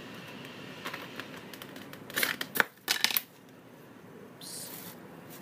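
Hands handling a plastic-packaged iPhone 4 phone case: a few clicks, then a burst of crackling and rustling about two to three seconds in, the loudest part, and a brief hiss near the end.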